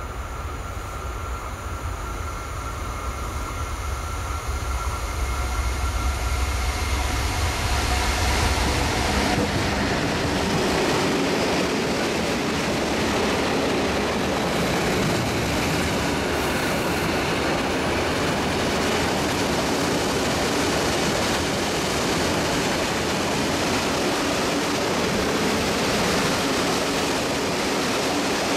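Heavy diesel-hauled freight train of spoil wagons passing close by. The low rumble of the approaching diesel locomotive builds over the first eight seconds or so, then gives way to the steady rolling noise of the wagons' wheels on the rails.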